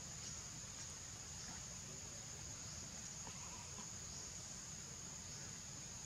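Steady high-pitched drone of an insect chorus, with a low steady rumble underneath.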